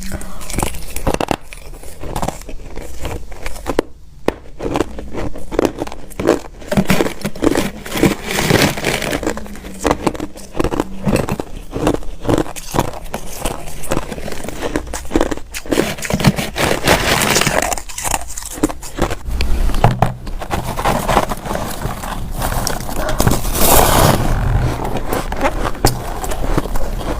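Hard ice being bitten and chewed, a dense series of sharp cracks and crunches as the pieces break between the teeth.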